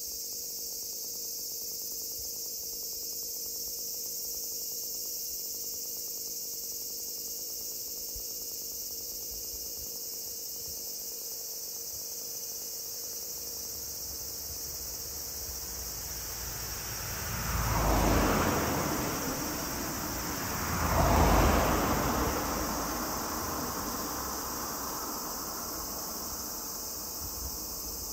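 Steady high-pitched chorus of insects. About two-thirds of the way in, two vehicles pass one after the other, each swelling and fading over a couple of seconds, the second louder.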